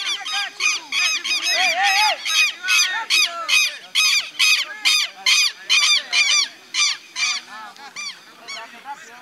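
A bird calling loudly in a rapid series of sharp, repeated calls, about three a second, thinning out near the end.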